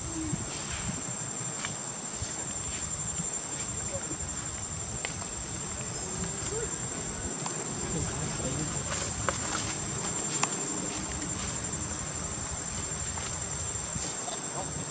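Steady high-pitched insect drone, one unbroken tone, with a few faint clicks about nine to ten seconds in.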